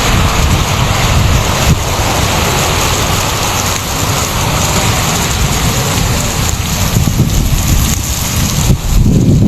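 Heavy storm downpour pelting down steadily, with wind buffeting the microphone and a deep rumble that grows louder near the end.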